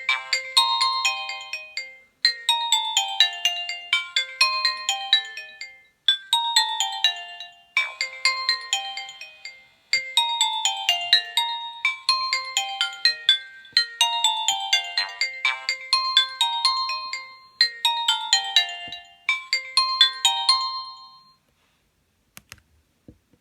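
Nokia 1280 ringtone playing a short melody of quick descending notes, the phrase repeating about every two seconds. It stops about 21 seconds in.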